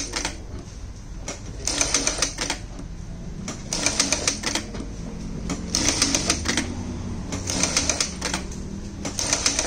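Bruce R2 direct-drive computerized industrial lockstitch sewing machine stitching a strip of denim, running in short bursts of rapid needle clatter about a second long, one roughly every two seconds, with brief pauses between.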